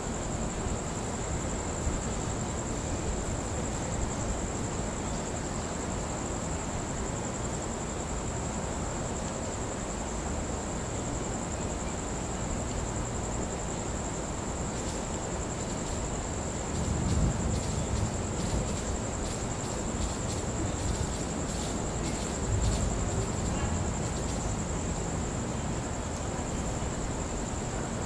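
Crickets trilling steadily and high, with two brief deep rumbles of distant thunder past the middle.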